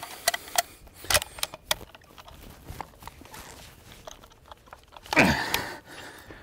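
Scattered light clicks and knocks of a bolt-action Lee-Enfield rifle being handled and fumbled. About five seconds in comes a louder, breathy sound that falls in pitch.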